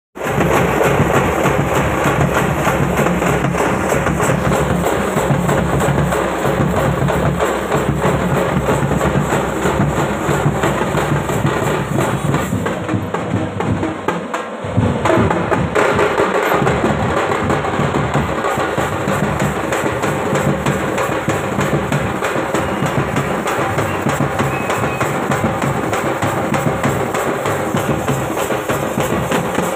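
A thappu drum troupe playing together: many stick-beaten drums in a loud, dense, continuous rhythm, with a larger drum adding deep beats. The playing thins briefly about halfway, then carries on.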